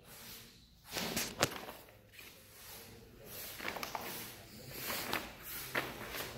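Footsteps on a staircase, with a few sharp scuffs and taps at irregular intervals amid a soft rustling.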